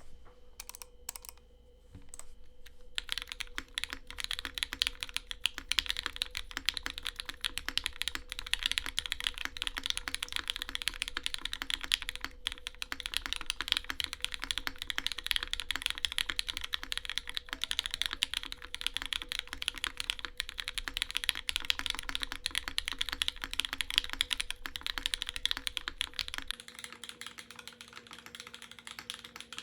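Fast, continuous typing on a Matrix 2.0add mechanical keyboard with broken-in, lubed and filmed Hyperglide Cherry MX Black linear switches, 55 g springs, a full aluminium plate on a 1.6 mm PCB, top mount, no foam, and GMK keycaps. A few scattered key clicks come first, and steady typing starts about three seconds in. Near the end the sound is picked up by a phone's built-in mic instead of a studio microphone, so it loses its low end.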